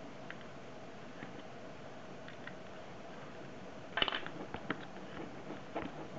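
Faint small clicks as a coin turns the side-plate screw of a Daiwa Steez baitcasting reel, then a louder clatter of handling about four seconds in, followed by scattered clicks as fingers work the reel's side plate.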